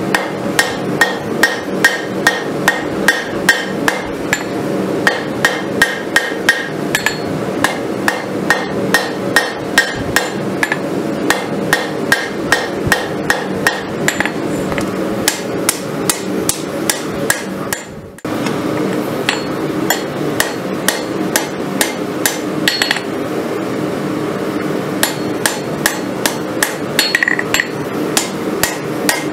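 Hand hammer striking a red-hot farrier's rasp on an anvil, about three even blows a second, as the steel is forged into a kukri blade. A steady hum runs underneath, and the hammering stops briefly a little past the middle before it resumes.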